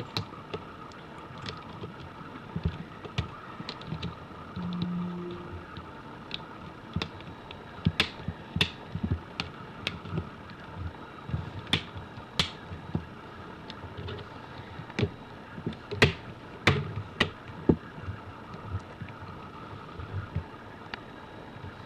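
Plastic screen bezel of a Samsung Chromebook being pressed onto the lid: irregular sharp clicks and taps as its clips snap into place, coming thicker and louder in the middle and second half.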